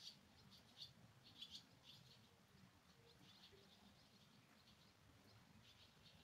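Faint, quick bird chirps, a rapid cluster in the first two seconds and a few more near the end, over the soft steady sound of a rain shower.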